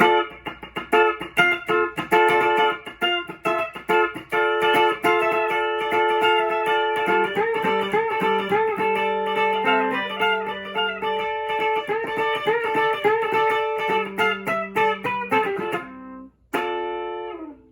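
Flight Centurion electric tenor ukulele with steel strings, played with a pick through an amplifier: a run of picked notes and chords over some held low notes. The playing breaks off near the end, then a few more plucks follow.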